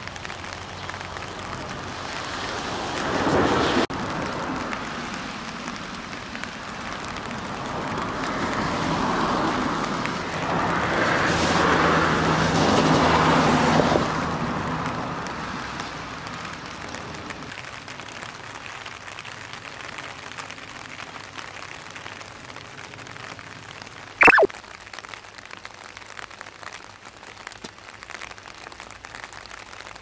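Steady rain ambience, with the hiss of tyres on a wet road swelling as a vehicle passes, most strongly from about 8 to 14 seconds in. About 24 seconds in, a short, loud, falling whistle-like tone.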